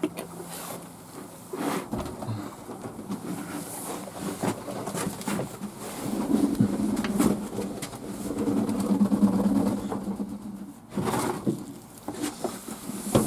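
Fantail pigeons cooing, low and drawn-out, growing stronger about halfway through, with a few light knocks.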